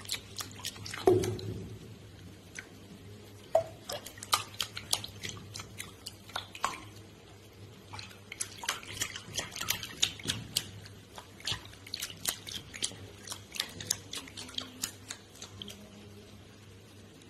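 Bath water splashing and dripping as a cat paws and wades through a shallow bubble bath. It comes as a long run of small, quick splashes and drips, the loudest about a second in.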